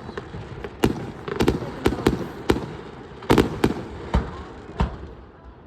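Aerial fireworks going off: a string of about ten sharp bangs, some in quick pairs, growing sparser and fainter towards the end.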